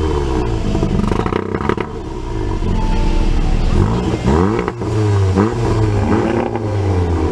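Turbocharged 2.0-litre four-cylinder hot-hatch engine being revved from idle in repeated blips, the revs rising and falling over and over. A few blips come in the first second, then a quicker run of them from a little past halfway.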